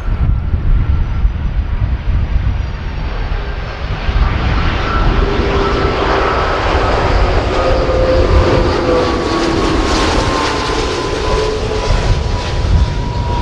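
Airbus A330-300's Rolls-Royce Trent 700 turbofans as the airliner flies low and close past with its landing gear down. A steady deep rumble and rush of jet noise, with a whine that slowly falls in pitch as it passes.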